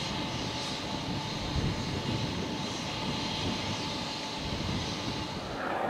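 Wind buffeting the microphone: an uneven low rumble under a steady rushing hiss.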